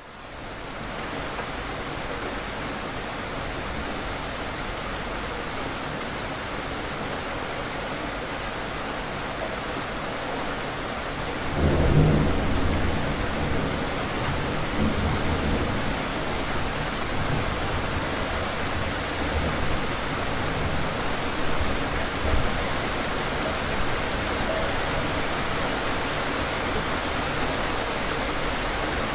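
Heavy rain falling steadily, fading in over the first second. About twelve seconds in, a thunderclap breaks, and low thunder rumbles on and off for the rest.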